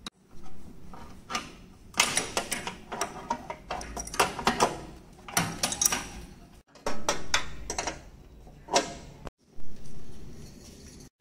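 Spanner and pliers clinking, knocking and scraping against an air conditioner compressor's copper pipe fittings and service valves as they are worked loose: a run of sharp metal clicks and knocks in clusters, broken by two short gaps.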